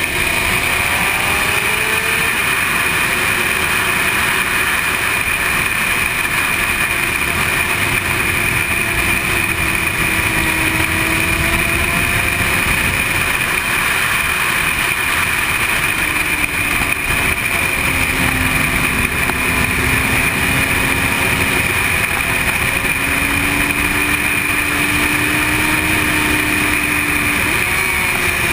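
Sport motorcycle at track speed, heard through a helmet-mounted camera: steady, heavy wind rush over the mic with the bike's engine note underneath, its pitch shifting with the throttle and gliding near the start and again near the end as the bike takes corners.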